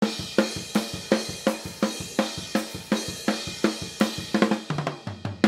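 Recorded drum kit played back through a mix: snare, kick, hi-hat and cymbals in a steady beat of about four to five hits a second, with a quicker run of hits near the end. The snare close mic has been nudged 3 ms later so it lines up in time and phase with the overhead microphones.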